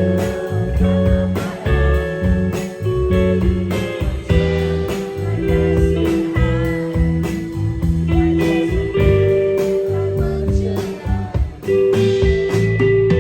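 Band music: guitar playing held, sliding notes over bass and drums with a steady beat.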